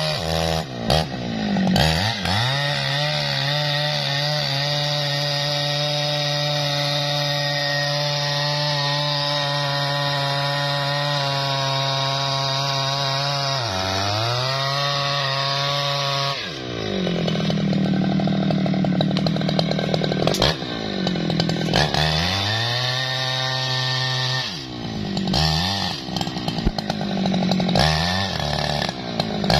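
Jonsered two-stroke chainsaw running at high revs as its chain saws into a standing tree trunk. The engine note dips and recovers about half a dozen times, and pulls down lower for a few seconds a little past the middle as the bar works in the cut.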